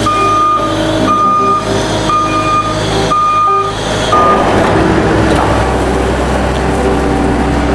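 Skid steer loader's engine running, with a high beeping tone repeating irregularly over the first half. About four seconds in the beeping stops and a steady low engine drone carries on.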